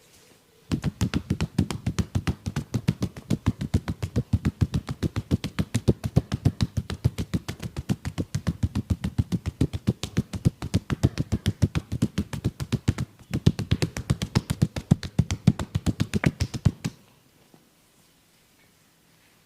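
Percussive hand massage: hands striking in a fast, even rhythm of many strikes a second, with a brief break about two-thirds of the way through and a sudden stop near the end.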